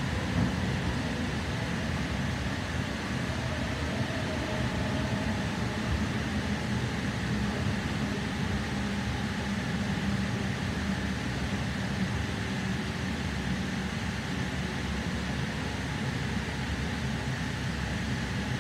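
Steady running noise inside a Sydney Trains K set double-deck electric train carriage while it travels: an even rumble with a faint steady hum.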